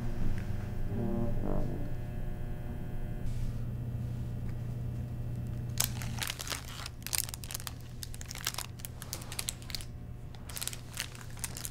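Background music with brass-like tones in the first couple of seconds. From about halfway on, a plastic snack wrapper crinkles in irregular crackles as it is handled on a desk.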